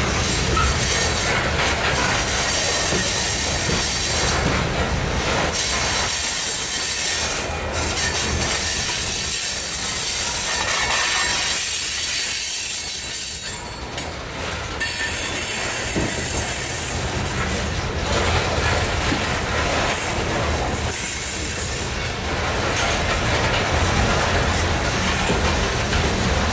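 Loaded coal hopper cars rolling past on curving track: steel wheels rumbling on the rails, with a high-pitched wheel squeal that fades briefly a few times.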